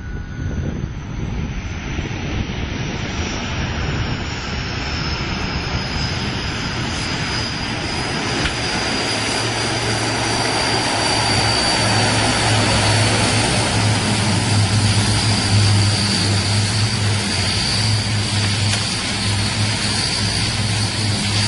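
Four-engine turboprop airliner's engines and propellers running, growing steadily louder as the aircraft comes closer. A high turbine whine that sinks slightly in pitch sits over a low propeller hum, which strengthens about halfway through.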